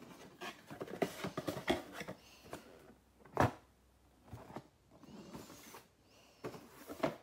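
Cardboard box being opened and handled: scattered faint rustles, scrapes and taps, with one sharper knock about three and a half seconds in.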